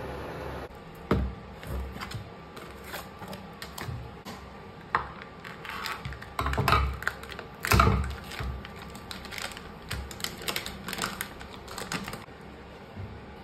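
Kitchen prep handling noises: irregular taps, clicks and knocks of utensils and items on a counter, with louder knocks about a second in and twice around the middle.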